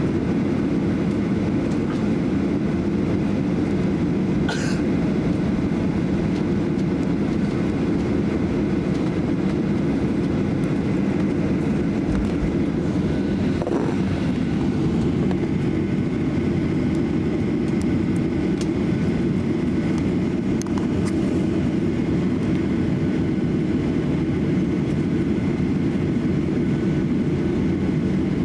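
Cabin noise of a Boeing 737-800 taxiing after landing: a steady low rumble from its CFM56-7B engines and the airframe rolling over the taxiway. A few faint, brief sounds sit on top, one about four and a half seconds in.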